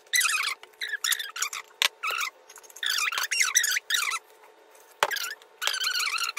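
A woman's voice played back sped up, high-pitched and squeaky, talking in short stretches with brief pauses, with a couple of light knocks.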